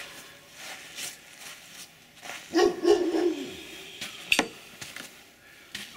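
A dog barking, with a longer pitched bark about two and a half seconds in and a single sharp bark just after four seconds.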